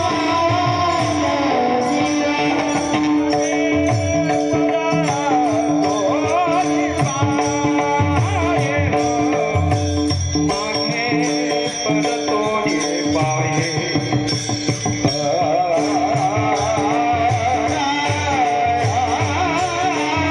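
A male voice singing a devotional bhajan with wavering, ornamented lines over held drone notes, accompanied by a steady drum beat and small jingling cymbals keeping time.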